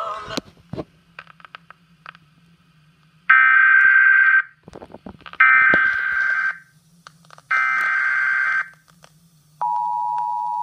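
Emergency Alert System broadcast of a severe thunderstorm warning: three buzzy digital header bursts of about a second each, then the steady two-tone attention signal starts near the end.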